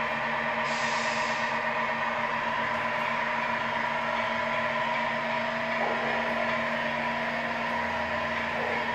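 Simulated truck diesel engine sound from the Tamiya Scania R620 RC truck's MFC-01 sound module, played through its onboard speaker and running steadily as the truck drives slowly, with a short falling dip in pitch twice.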